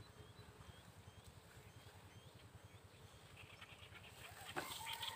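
Faint outdoor quiet, with a small bird repeating a short chirp about twice a second. Near the end comes a louder animal call.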